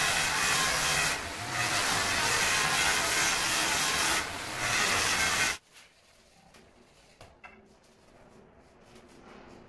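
Angle grinder cutting a marble strip: a loud, steady cutting noise that dips briefly twice and stops abruptly a little past halfway. Then faint scraping and small clicks of a trowel spreading tile adhesive on marble.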